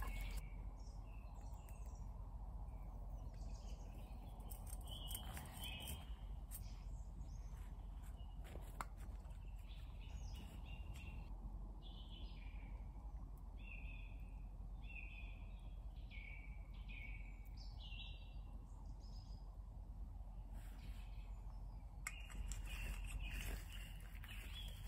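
Birds singing, with short repeated chirps, over a faint low background hum, with a few sharp clicks close by.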